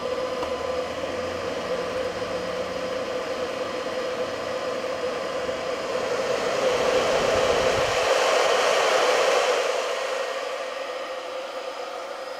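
A steady mechanical whirring with a rushing-air hiss. It grows louder about six seconds in, then eases off after about ten seconds.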